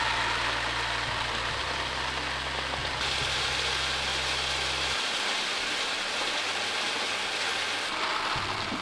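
A steady low mechanical hum over a steady rushing hiss; the hum cuts off suddenly about five seconds in while the hiss goes on.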